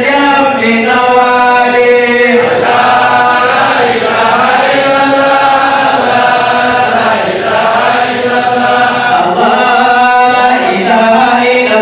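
A man chanting into a microphone in long, held melodic phrases that bend slowly in pitch, without a break.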